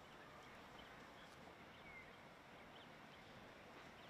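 Near silence: faint outdoor ambience with a few brief high chirps from birds, one falling in pitch about two seconds in.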